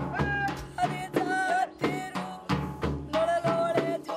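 Music: a wavering melody over a steady drum beat of about three strokes a second.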